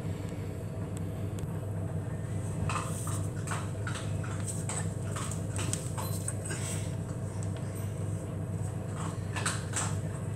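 Scattered light taps and knocks of a person moving about on a tiled floor, over a steady low hum.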